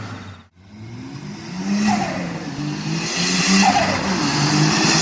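Tuned turbocharged car engine running and revving, with short bursts of high hiss between revs. It cuts out sharply about half a second in, then the engine comes back.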